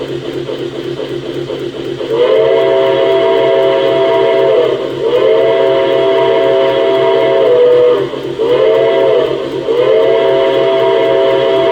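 Model steam locomotive's RailSounds sound card blowing a chime steam whistle over steady running sounds. It gives four blasts from about two seconds in (long, long, short, long), the grade-crossing signal, each sagging in pitch as it ends; the last runs on past the end.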